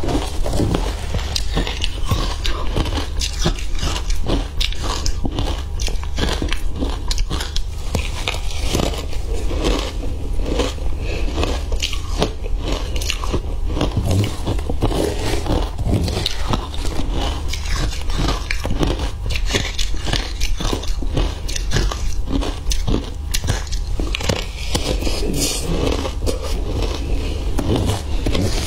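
Crunching and chewing of crushed matcha ice, picked up close by a collar mic, in a dense run of crisp crunches, with a metal spoon scraping through the ice in a plastic basin.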